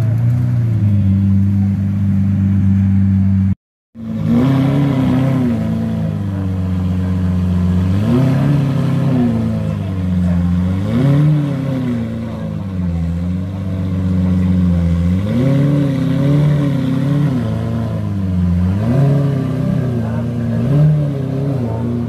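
Lamborghini Murciélago V12 running steadily, then, after a brief break, revved over and over with short throttle blips, its pitch rising and falling every few seconds.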